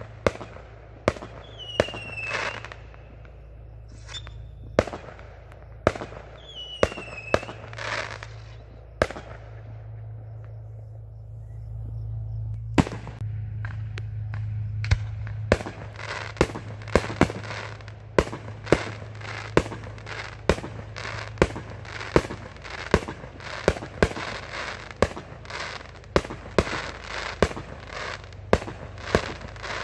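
Aerial fireworks going off: sharp bangs of rockets and shells bursting, scattered at first with a couple of brief whistles, then coming thick and fast, several bangs a second, from about halfway through.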